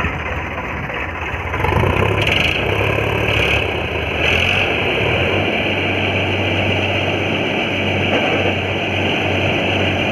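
Diesel tractor engines running steadily with a low drone while one tractor pulls another out of mud on a chain. The engine noise gets louder about a second and a half in.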